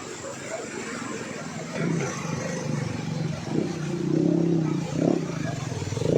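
A motor vehicle engine running steadily, with a low hum that grows louder from about two seconds in, over a steady noisy background.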